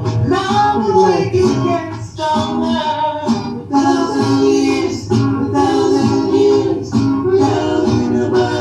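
Reggae song playing, with singing over guitar and bass.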